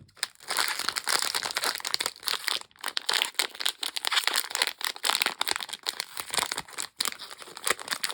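A blind bag packet crinkling and crackling in the hands as it is worked open, a dense run of sharp crackles without pause.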